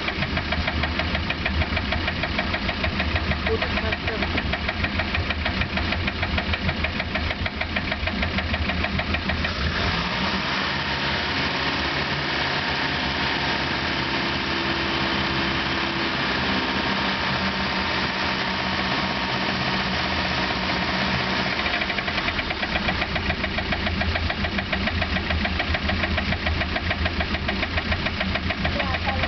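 MerCruiser 3.0 LX four-cylinder marine engine running with a rapid metallic rattle. From about ten seconds in the rattle gives way to a smoother, steadier run, and it comes back about twenty-two seconds in. The rattle is the fault being investigated on this engine.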